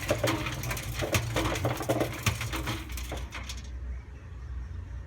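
Hotpoint Aquarius WF310 washing machine on its agitate cycle, the drum turning with a plastic toy washing machine clattering and knocking around inside it. The clatter stops about three and a half seconds in, leaving a low hum.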